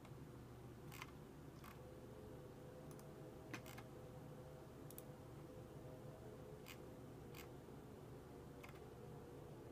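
Near silence: a low room hum with about nine faint, sharp clicks scattered irregularly.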